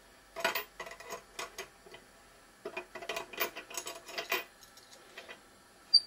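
Steel tap spanner clinking and rattling against a chrome tap's head nut as it is handled: two flurries of light metallic clicks and taps, then one sharp click near the end.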